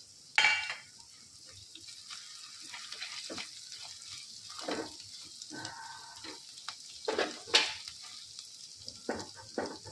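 Tempering of mustard seeds, cumin, fennel, crushed garlic-ginger-chilli and curry leaves sizzling in hot ghee in a stainless steel kadhai, with a steady hiss. A silicone spatula stirs and scrapes the pan, making scattered strokes, louder about half a second in and again around seven seconds.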